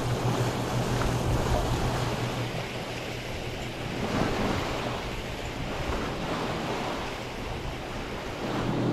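Water rushing and splashing along a sailboat's hull as it moves under way, with wind buffeting the microphone.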